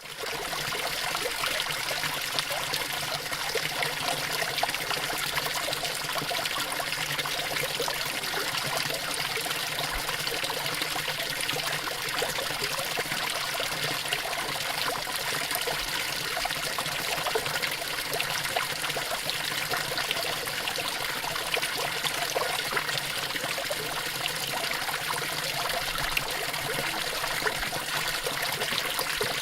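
A water fountain running: a steady splashing and trickling of falling water.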